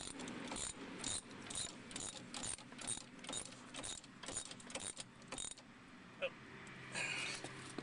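Ratchet wrench clicking in a steady rhythm, about two clicks a second, as a sway bar link nut is tightened down. It stops about five and a half seconds in.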